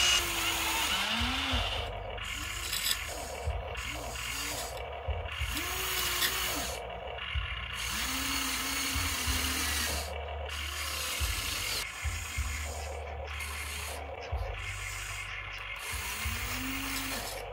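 Electric motors and gearing of a HUINA remote-control toy excavator whirring in short start-stop bursts as the boom, arm and bucket move. Many bursts rise and fall in pitch as a motor speeds up and slows down.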